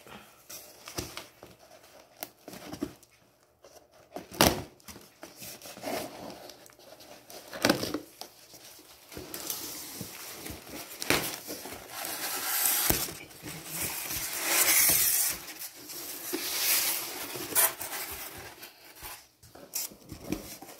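A cardboard box being cut open with scissors and unpacked, with scattered knocks of cardboard and packing being handled. In the second half come longer stretches of crinkling plastic wrap as the wrapped pendant-light parts are pulled about.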